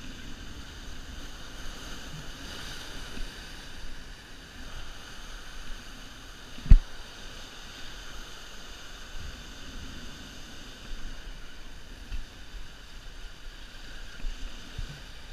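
Ocean waves breaking and washing over rock ledges, a steady rushing noise, with one sharp knock about seven seconds in.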